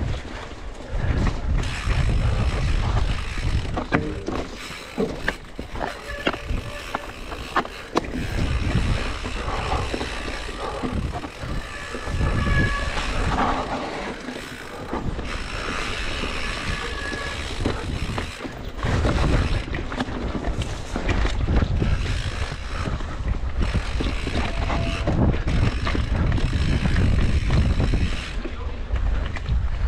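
Mountain bike ridden fast along a dirt singletrack: wind buffets the microphone in a constant low rumble, over the noise of the tyres on dirt and the bike rattling, with many sharp knocks as it hits bumps and roots.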